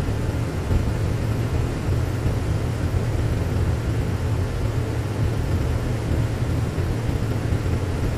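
Single-engine seaplane's engine and propeller droning steadily in cruise flight, heard from inside the cockpit, with a constant rush of air noise over it.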